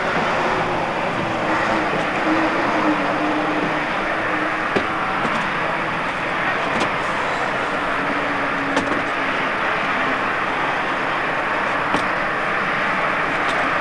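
Diesel engine of a bonneted Scania tipper truck running at low speed as it manoeuvres, its note wavering slightly, under a steady hiss. A few faint sharp clicks occur along the way.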